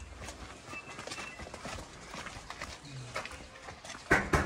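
Soft footsteps on a dirt lane with faint scattered taps. Near the end, loud rapid knocking on a sheet-metal gate starts, about four or five knocks a second.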